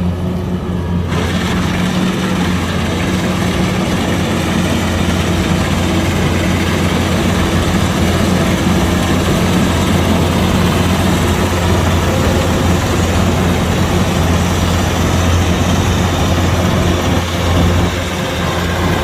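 Kubota DC-105X combine harvester's diesel engine running steadily with a low, even hum. A higher rushing noise from the working machine joins about a second in.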